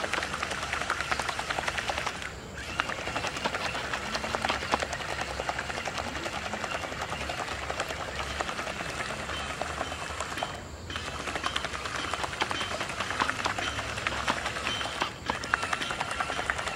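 A spinning plastic-bottle paddle wheel, driven by a small DC motor, churning and splashing through the water in a rapid, continuous clatter. A faint steady motor whir runs underneath. The sound dips briefly three times.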